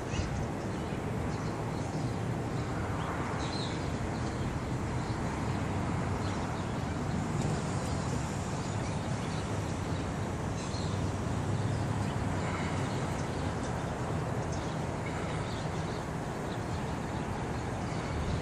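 Steady outdoor background noise: a low rumble with a few faint, short high chirps.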